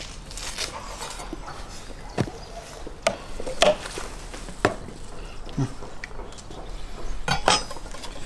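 A large kitchen knife cutting into a raw wild boar leg on a wooden cutting board, with a handful of sharp knocks and clicks as the blade and meat strike the board.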